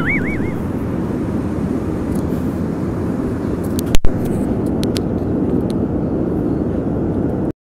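Passenger airliner cabin noise: a steady low rumble of engines and airflow. A single sharp click comes about halfway through, and the rumble cuts off abruptly near the end.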